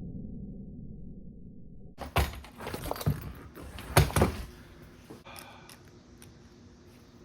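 Metal knocks and clanks from handling the padlock and the Ramset nailer after a shot, four sharp ones between about two and four and a half seconds in, the loudest near four seconds. Before them, about two seconds of muffled low noise.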